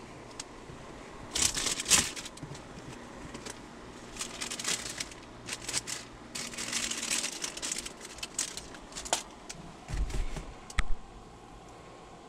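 Paper and plastic wrappings being handled, crinkling and rustling in irregular short bursts, with a couple of soft low thumps near the end.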